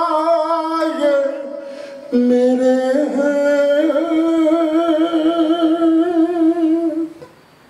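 Male naat reciter singing a long, wordless drawn-out line of an Urdu salam. The voice dips and breaks off briefly around two seconds in, then takes up a held note that wavers with vibrato and ends about seven seconds in.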